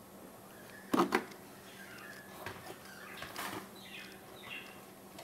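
Clear plastic packaging insert being handled: two sharp clicks about a second in, then faint rustling.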